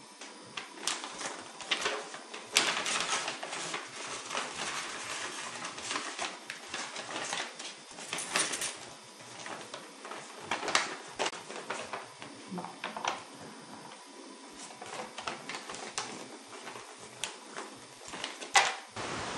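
Sheets of paper being handled, rustling and crackling in irregular sharp crinkles, loudest near the start and once more near the end.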